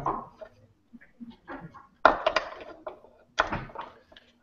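Trammel-point heads and the beam of a beam compass being handled and fitted together, giving a few sharp clacks and knocks with small clicks between. The loudest knocks come about two seconds in and again near three and a half seconds.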